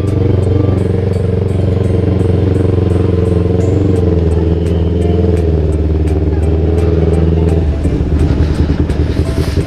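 Yamaha R25 sport bike's parallel-twin engine running steadily at low speed under the rider. About eight seconds in the note drops and turns uneven and pulsing as the bike slows toward idle.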